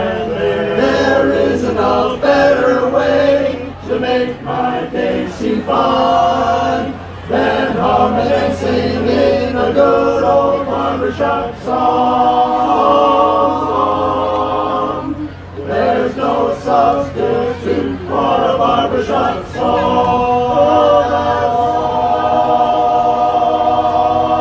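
Men's barbershop chorus singing a cappella in four-part close harmony, phrase by phrase with short breaks between, settling into a long held chord near the end.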